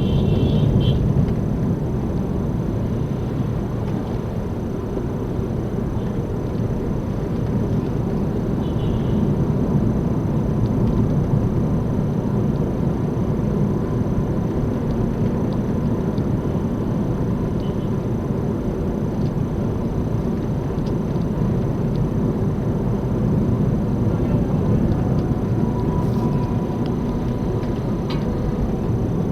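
Car driving with a steady low drone and rumble from a bad front wheel bearing.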